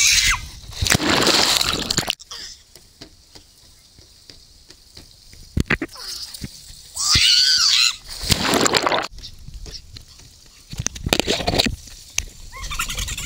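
Water rushing and splashing around a person riding down an enclosed water slide, in loud surges, with shouts near the start and about seven seconds in.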